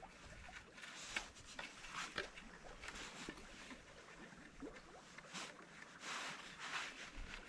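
Cord being wound and pulled tight around wooden canoe paddle shafts, with faint rustling and scraping and a few small, sharp clicks and knocks of wood. A longer rustle comes near the end.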